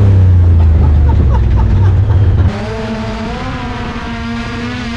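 Honda Talon 1000's parallel-twin engine running loud and low. About two and a half seconds in, it cuts abruptly to a quieter, steadier engine note with a slightly wavering pitch.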